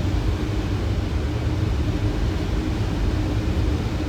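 Steady Boeing 737 flight-deck noise on final approach with landing gear and flaps down: a constant rush of airflow over a low rumble, with a faint steady hum.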